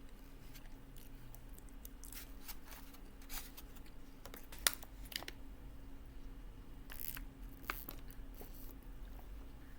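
Close-up eating sounds of taco salad with tortilla chips: chewing with scattered sharp crunches and crackles, the loudest just under halfway through.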